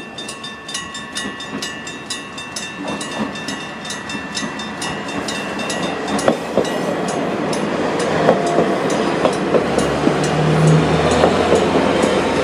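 A level crossing's electric bells ring with rapid, evenly spaced strikes as a KiHa 40 diesel railcar train comes through. The train's engine and wheel noise grow steadily louder under the bells, with clacks over the rail joints in the second half.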